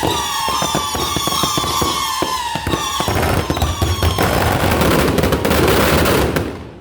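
Fireworks and firecrackers going off: rapid popping crackle under several whistles that slowly fall in pitch. About three seconds in, the popping thickens into a dense continuous crackle, which cuts off shortly before the end.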